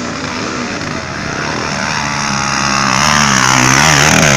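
Dirt bike engine revving while riding on a trail, its pitch rising and falling and getting louder toward the end.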